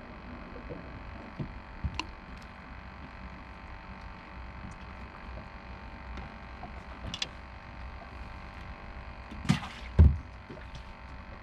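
Gear being handled on a small fishing boat's deck: a few light knocks, then two louder thumps about half a second apart near the end, over a steady hum.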